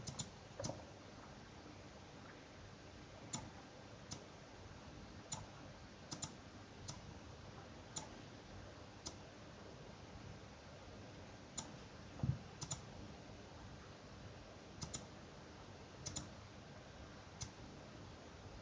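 Faint clicks of a computer mouse as buttons are pressed in a design program: scattered single clicks and quick double clicks, a second or more apart. About twelve seconds in there is one soft low thump.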